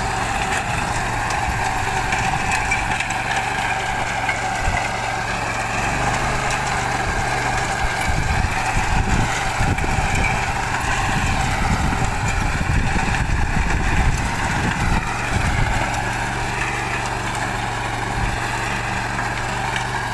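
Swaraj Code 12 hp mini tractor's engine running steadily while its rear rotary tiller churns dry soil. The engine note wavers slightly up and down, with uneven low rumbling through the middle.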